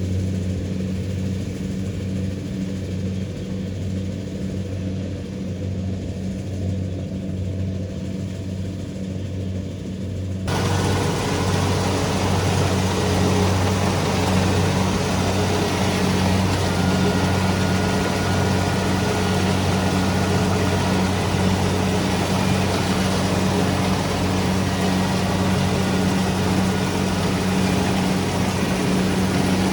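Kubota DC-70 Pro combine harvester's diesel engine running steadily with a low hum. About ten seconds in the sound abruptly gets louder and fuller, with more hiss and rattle over the hum, and holds there.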